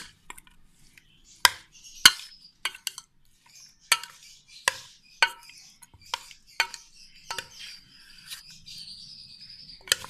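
A white spoon stirring marinated chicken pieces in a stainless steel bowl: about a dozen irregular clinks as the spoon knocks against the steel, with softer stirring noise between them.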